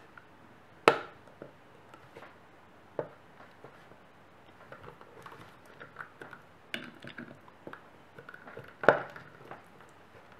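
Small screwdriver clicking and scraping on a 2.5-inch hard drive's metal case as a small screw is worked out, a scatter of light ticks and taps with two sharp clicks, about a second in and near the end.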